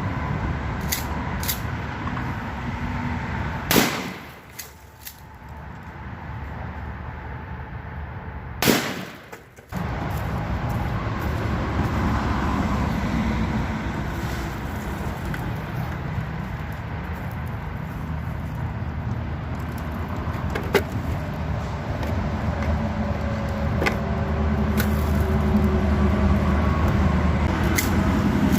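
Two 12-gauge shotgun blasts about five seconds apart, each followed by a brief dip as the recording's level ducks, then a few lighter clicks later on, over a steady low rumble.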